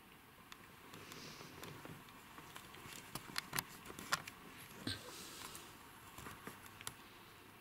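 Soft rustling of movement close to the microphone, with a scatter of sharp clicks and taps in the middle, the loudest about four seconds in.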